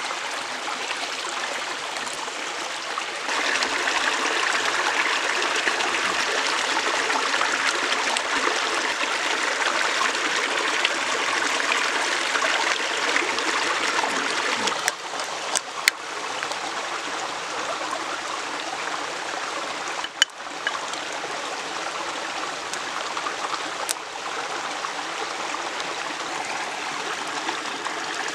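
Small mountain stream running over rocks, a steady rushing and trickling that gets louder a few seconds in and drops back after about fifteen seconds. A few sharp clicks stand out over it in the second half.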